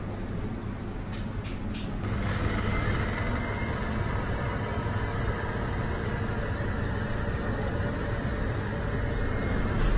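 Steady mechanical hum and rushing noise of a running commercial kitchen broiler and its surroundings, growing louder about two seconds in.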